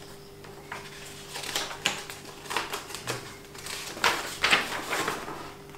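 Hard plastic model-kit parts and packaging being handled: a string of irregular clicks, taps and knocks, loudest about four seconds in.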